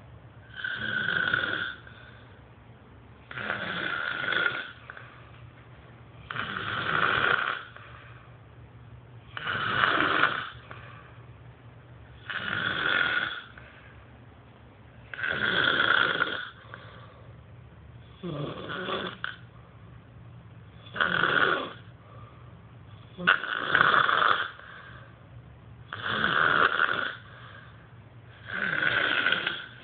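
A man snoring heavily in his sleep, one loud snore about every three seconds, regular breath after breath.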